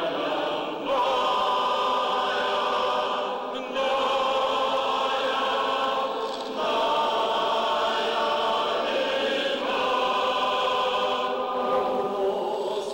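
Church choir singing Byzantine-rite liturgical chant in sustained chords, moving to a new chord every few seconds.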